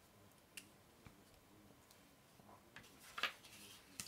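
Quiet desk handling: a few faint clicks, then a short rustle of paper a little after three seconds, as a hand handles a water-brush pen and picks up a small card of watercolour paper.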